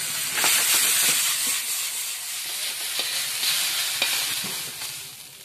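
Chow mein noodles sizzling in a hot iron wok, with a few light clicks and scrapes of a metal spatula against the pan. The sizzle dies down near the end.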